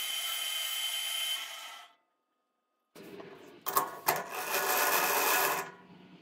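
Metal lathe cutting a thread on a steel part with a carbide insert, a steady whine with a metallic hiss, stopping abruptly about two seconds in. After a short silence come two sharp metallic clicks and about a second and a half more of machine running noise.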